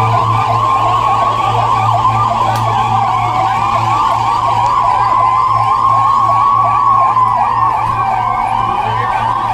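Several sirens wailing together as a civil-defence mock-drill alert. Many fast-warbling tones overlap, one slower tone climbs and then falls about three-quarters of the way through, and a steady low hum runs underneath.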